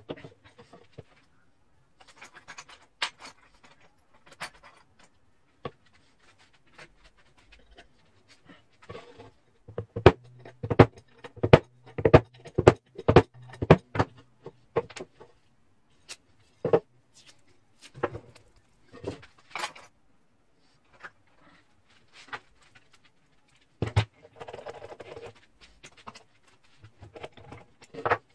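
Sharp clicks and knocks of tools and metal parts being handled at a workbench during a disc-sander build. Near the middle comes a run of regular, louder taps, about two to three a second.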